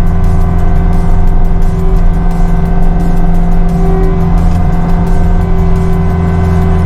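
Cat 259D3 compact track loader's four-cylinder diesel engine running steadily under work, with a steady hydraulic whine over the engine note.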